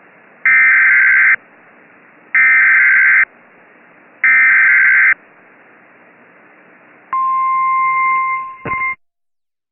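Emergency Alert System SAME header: three identical screeching digital data bursts, about a second each and a second apart, followed by a steady single-pitch weather-radio alert tone that cuts off abruptly with a click after about two seconds.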